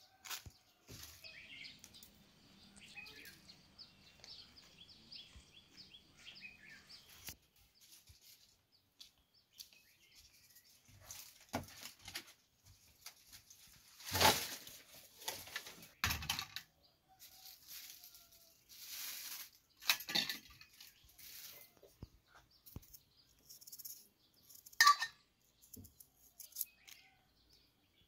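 Birds chirping in the background over the scattered clicks, scrapes and rustles of hand work: a knife paring peel off potatoes over a plastic bag. Sharp single knocks stand out about 14 seconds and 25 seconds in.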